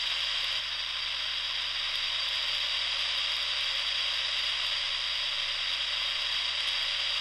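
Radio static: a steady, even hiss from a radio receiver, with no speech or music coming through.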